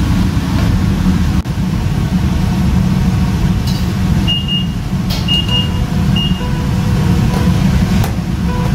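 Steady low roar of a commercial kitchen at a deep fryer full of bubbling oil. A few short high beeps sound around the middle, and a few sharp clicks are scattered through it.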